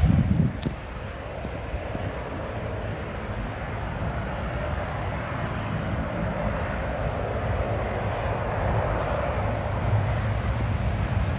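The Rolls-Royce Trent XWB engines of an Airbus A350-900 roar steadily at take-off power as the airliner climbs away, swelling slightly toward the end. Less than a second in, a loud low rumble drops away sharply with a click.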